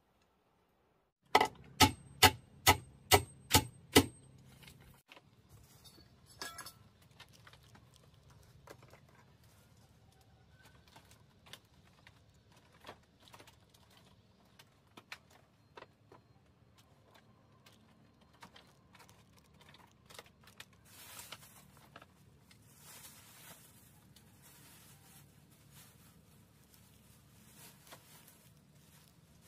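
Seven quick hammer blows on a nail, evenly about two a second, with a high ring over the first few, as the tarp is nailed to the hut's bamboo frame. Faint taps follow, and later a soft rustling of plastic.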